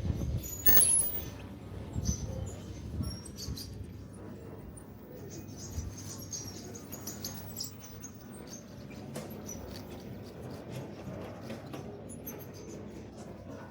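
City street ambience: a steady low rumble with many short, high chirps, squeaks and clicks, loudest in the first few seconds.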